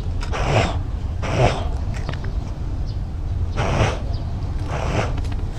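A cat's short noisy breaths, a few seconds apart, very close to a GoPro worn on its body, over a steady low rumble of the camera moving.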